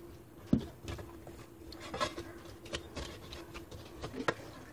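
Spatula pressing and scraping cooked tamarind and dried plum pulp against a steel strainer: scattered soft squelches and clicks, the loudest about half a second in, over a faint steady hum.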